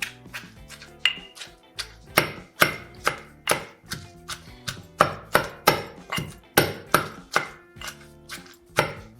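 Pestle pounding fried fish with fried onion, ginger, garlic and chili in a mortar: repeated knocks, a few scattered at first, then a steady two or so a second from about two seconds in, over background music.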